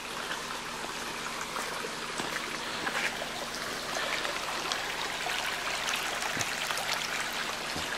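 Shallow, rocky woodland creek trickling and babbling over stones, a steady wash of running water.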